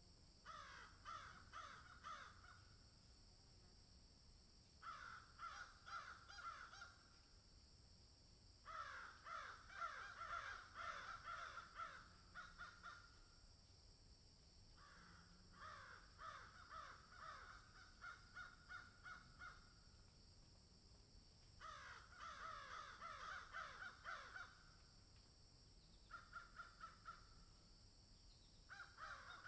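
Corvids calling in about six bouts of rapid, harsh repeated notes, each bout lasting two to four seconds, with short pauses between them.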